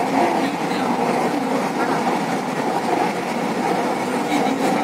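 Metro train running along an elevated track, heard from inside the carriage: a steady rolling and running noise.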